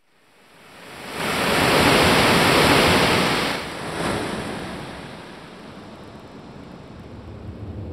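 A rushing, wind-like noise swells up out of silence, holds loud for about two seconds, then falls away to a lower steady hiss. A low rumble starts to build near the end.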